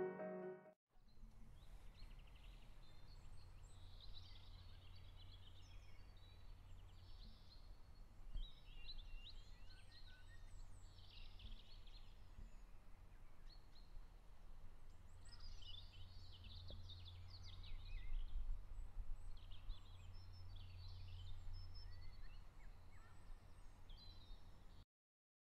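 Outdoor ambience: small birds chirping in short clusters again and again over a steady low rumble of background noise.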